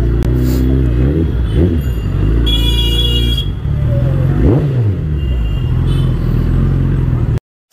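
Suzuki Hayabusa's inline-four engine running at low revs in slow street traffic, its pitch briefly rising and falling twice. A vehicle horn sounds for about a second, and the sound cuts off abruptly near the end.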